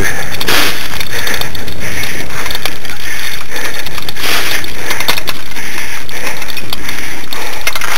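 Loud, continuous crunching and rattling of a musher's dryland rig running fast over a rough dirt trail behind two pulling sled dogs.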